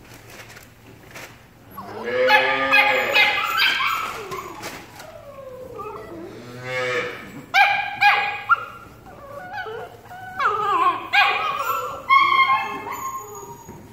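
Puppies yelping and whining as they play-fight, with drawn-out wavering whines a couple of seconds in, short sharp yips about eight seconds in, and a quick run of yelps near the end.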